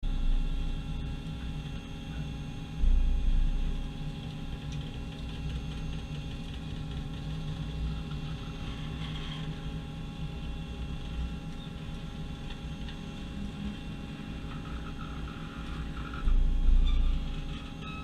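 WEISSER Univertor A-90 L vertical lathe running: a steady machine hum with several fixed tones over a low rumble. The rumble swells louder twice, about three seconds in and again near the end.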